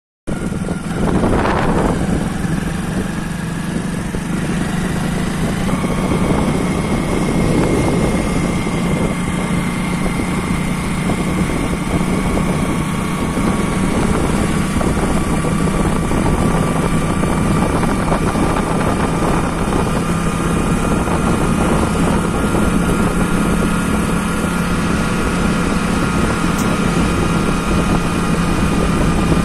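Motorcycle engine running steadily at cruising speed, heard from the moving bike, under a steady rush of wind and road noise.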